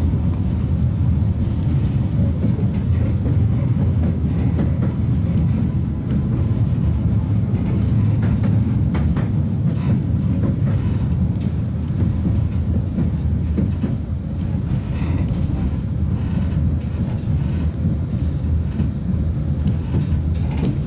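Tatra T3 tram running along the track, heard from inside the car: a steady low rumble of wheels on rails and running gear, with scattered clicks and knocks from the track.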